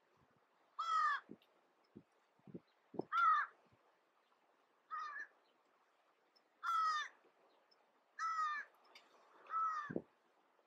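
American crows cawing: six short caws spaced about one to two seconds apart, each bending slightly in pitch. A few soft, low knocks come between the first calls and again just before the end.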